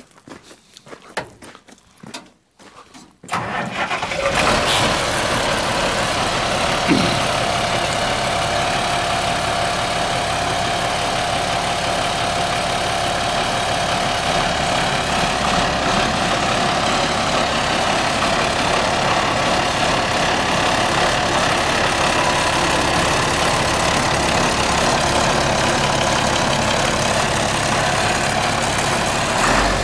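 White 2-105 tractor's six-cylinder diesel engine starting a little over three seconds in, then running steadily.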